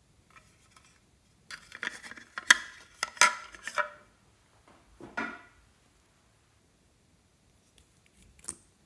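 Hard plastic items being handled and set down on a table: a burst of clicks and knocks for about two seconds, a shorter clatter about five seconds in, and a few sharp clicks near the end as a lip tint tube's cap is worked.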